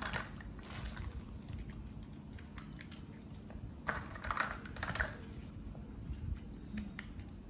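Light, irregular clicking and tapping of small objects being handled, with two short rustling bursts about four and five seconds in.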